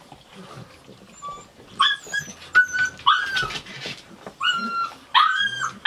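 Shar-Pei puppy whimpering: a quiet start, then from about two seconds in a run of short, high-pitched whines, several in a row.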